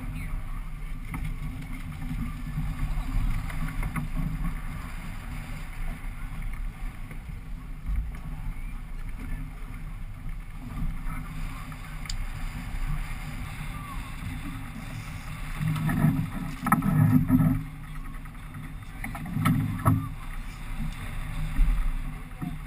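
Steady low rumble and wind noise on the microphone aboard a small fishing boat at sea, with two louder bursts of sound a few seconds apart about two-thirds of the way in.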